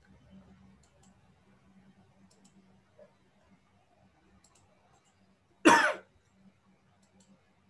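A single short, loud cough, about half a second long, heard over a video-call line, over a faint steady hum.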